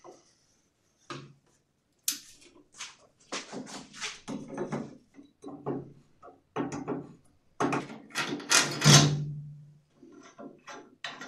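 Wrench loosening and removing the nut on the 5/8-inch bolt that serves as the bandsaw's wheel shaft: a run of irregular metal clicks, scrapes and knocks as the wrench is worked. The loudest knock comes about nine seconds in and is followed by a brief low ring.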